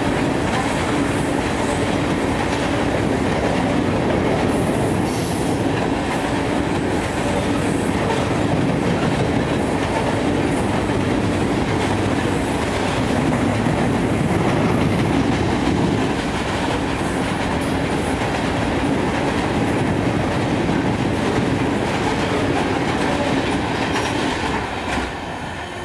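Coal hopper cars of a CSX unit coal train rolling across a steel truss bridge: a steady rumble of wheels on rail with a clickety-clack over the rail joints, getting a little quieter near the end.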